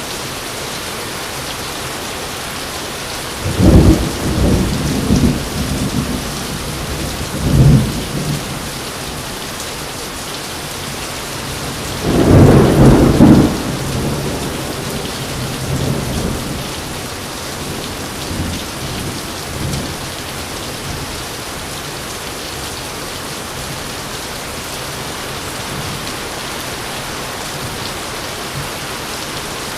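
Steady heavy rain with rolling thunder: a burst of cracks and rumbles a few seconds in, a louder thunderclap around twelve seconds in, then rumbles that die away while the rain goes on.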